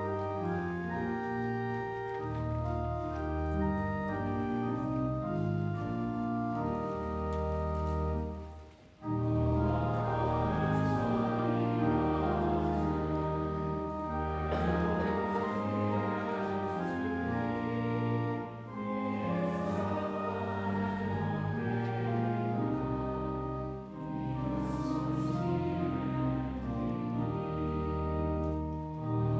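Organ accompanying choral singing of a hymn in slow, held chords, in phrases with short breaths about 9, 18 and 24 seconds in.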